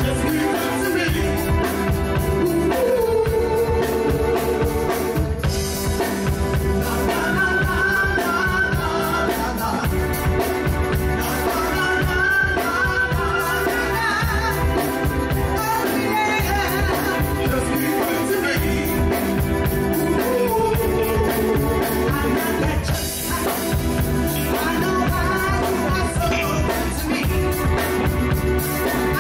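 Live soul band playing with a lead singer over a steady drum beat.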